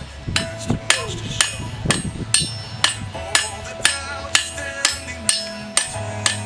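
Blacksmith's hammer striking steel on an anvil while forging a square spike nail, about two ringing blows a second at a steady pace, with a low steady hum underneath.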